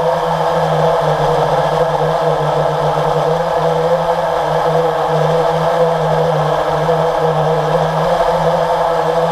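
Steady, unbroken drone of the motor and propellers of the radio-controlled aircraft carrying the camera, heard from on board.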